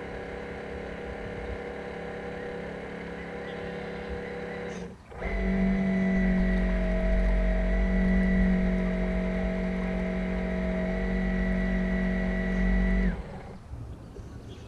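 Motor and propeller drive of an RC model container ship, picked up by a camera on its deck, running with a steady whine. About five seconds in it drops out for an instant and comes back louder and higher-pitched, then falls away sharply about a second before the end.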